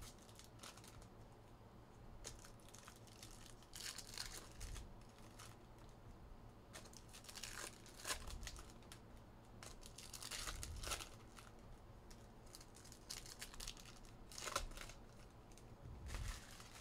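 Hands handling trading cards and foil card-pack wrappers: faint, short bursts of crinkling and tearing every few seconds.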